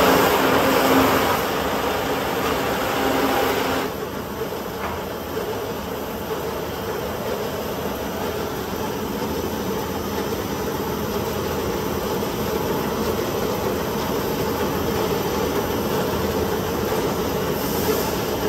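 STYLECNC STM1000-S4 CNC wood sanding machine running, its sanding rollers spinning with a steady mechanical hum. It is a little louder for the first four seconds, then drops slightly and holds steady.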